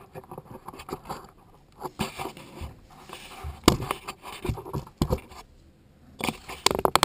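Handling noise of a camera being moved and set down on a wooden floor: irregular scrapes, rustles and knocks, with a quick run of clicks and knocks near the end. No saw motor is running.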